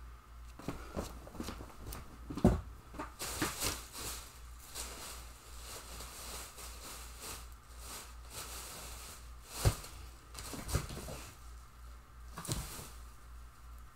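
A person rummaging through stored things: rustling with scattered knocks and clunks, two sharper knocks about two and a half seconds in and near the ten-second mark, over a low steady hum.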